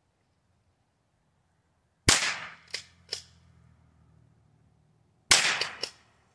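Two shots from a Henry H003T .22 LR pump-action rifle, about three seconds apart, each followed by two quick sharp clacks.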